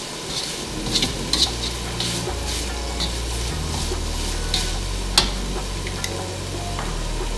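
Broccoli, onion and bell pepper sizzling in a hot wok while metal tongs toss them, clicking and scraping against the pan, with one sharper clack about five seconds in.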